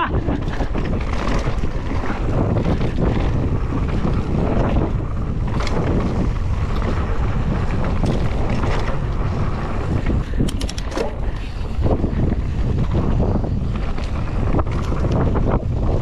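Wind rushing over the microphone as a mountain bike descends a dirt trail at speed, with the tyres rolling on dirt and the bike knocking and rattling over bumps.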